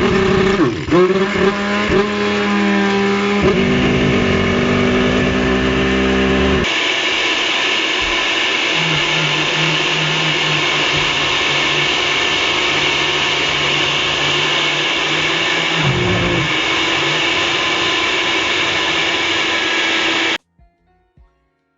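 Electric blender on its highest setting grinding whole coffee beans, running loud and steady. Its pitch shifts twice in the first several seconds as the beans break down, and it cuts off suddenly near the end.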